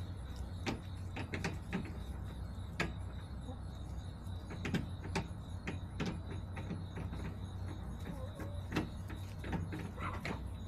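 Chickens pecking near the camera: irregular sharp taps and clicks, sometimes several close together, over a steady low hum and a faint steady high whine.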